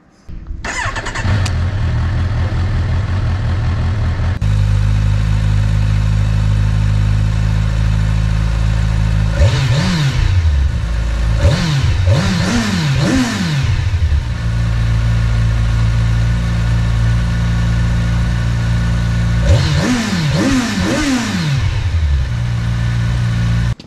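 Kawasaki Ninja 1000SX's inline-four starting on its stock exhaust, then idling steadily. About ten seconds in it is revved in four quick blips, and three more blips come near the end.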